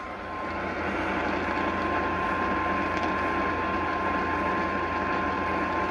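Steady hiss of radio static from a weather radio receiver, with a thin, steady high-pitched tone running under it.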